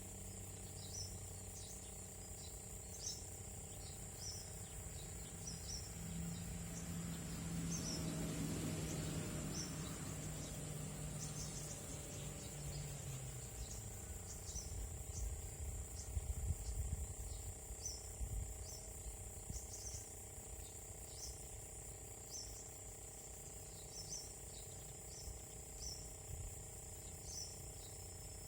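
Insects (crickets) droning steadily with a continuous high buzz, over which short high chirps repeat every second or two. A low hum swells and fades in the first half.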